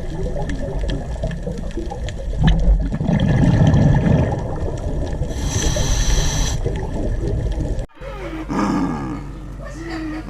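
A large animal's deep, rumbling roars, cutting off abruptly about eight seconds in and followed by wavering, pitched calls.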